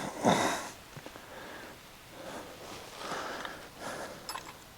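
A man's breathing and a sniff, with a few small clicks just past four seconds in.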